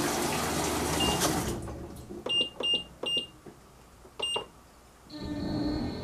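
Fisher & Paykel EcoSmart washer running normally with its failed balance switch bypassed: water rushing in as it fills stops about a second and a half in. A few short high beeps, each with a click, follow. About five seconds in, the machine's motor starts with a steady hum and a high whine.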